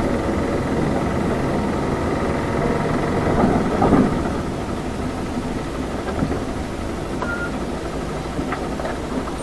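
Small city bus's engine and road noise heard from inside the passenger cabin, a steady rumble with a louder patch about four seconds in before settling a little quieter.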